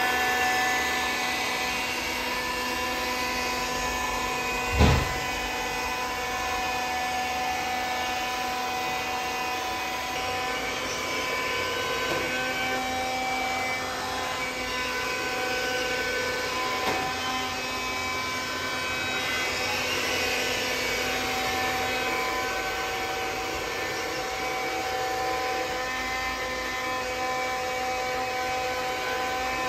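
iRobot Scooba robot floor scrubber running: a steady motor whine from its vacuum and scrubbing brush, with one sharp thump about five seconds in.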